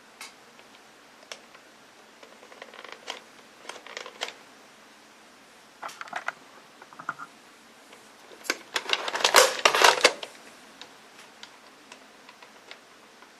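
Plastic toy gun being handled: scattered sharp clicks, then a dense run of rattling clicks lasting about a second and a half about two-thirds of the way in.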